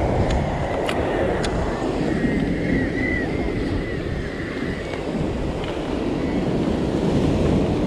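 Surf breaking and washing over the shore rocks, mixed with wind buffeting the microphone, as a steady loud noise. A few sharp clicks come in the first second and a half.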